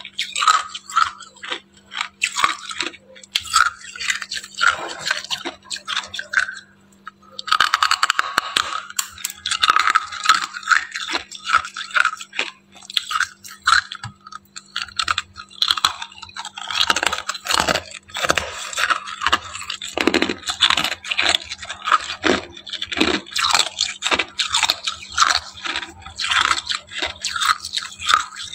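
Freezer frost being crunched: a dense, rapid run of crisp, crackly crunches with a brief lull a little before the middle. A faint steady low hum runs underneath.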